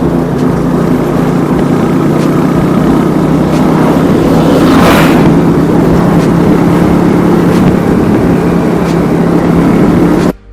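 An engine running steadily under loud rushing noise, with a brief swell of noise about five seconds in.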